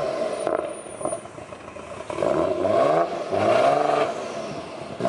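Nissan Skyline R32 engine revving as the car is driven and turned, its pitch climbing in several quick rising sweeps, the first about two seconds in after a brief lull.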